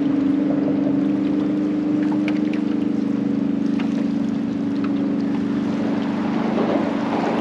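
A boat's engine running at a steady, even hum, with wind and water noise over it.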